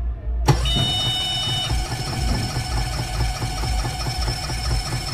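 A small boat tender's engine being cranked by its electric starter: a steady whine with a fast, even churning rhythm, starting suddenly about half a second in, with a brief high beep just after it begins. The engine is not catching.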